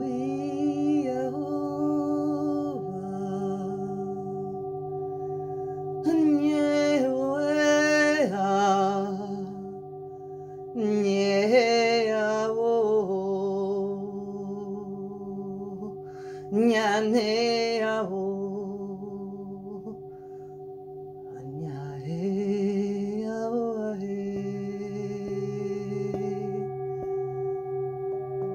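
Singing bowls ringing in a steady, layered drone, with a voice singing several wordless, wavering phrases over them in the style of 'light language' sound-healing vocals.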